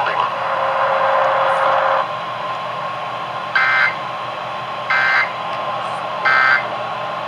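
Emergency Alert System end-of-message signal from a weather radio: three short, identical bursts of warbling digital data tones about a second and a half apart, over steady radio hiss. A hissy stretch fills the first two seconds and stops abruptly.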